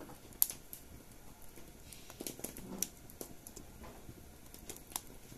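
Wood fire in a hearth crackling faintly, with a few scattered sharp pops.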